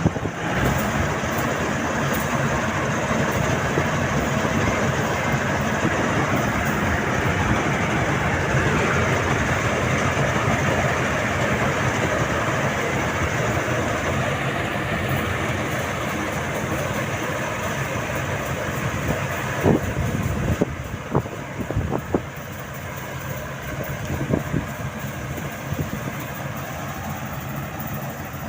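Rice combine harvester running steadily under load, with its engine and threshing machinery making a dense mechanical rumble. A few sharp knocks come about two-thirds of the way through.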